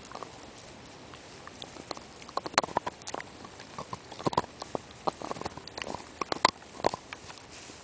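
A dog gnawing on a bone, its teeth clicking and crunching against it in irregular sharp bursts. The clicks are sparse at first and come in quick clusters after a couple of seconds.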